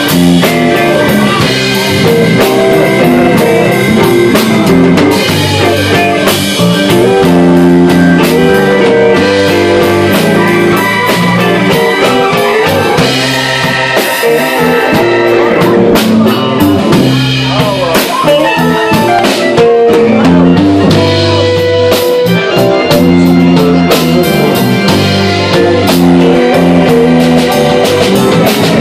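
Live blues band playing a slow blues, with electric guitar lead over bass, drums and keyboard.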